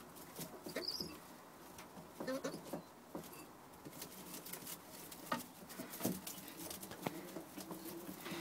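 Young Birmingham roller pigeons cooing softly, with scattered taps and rustles in the straw bedding.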